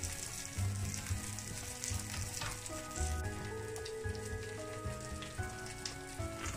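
Chicken patties, onion and mushrooms sizzling on a hot stovetop griddle, a steady hiss with light crackles, under background music.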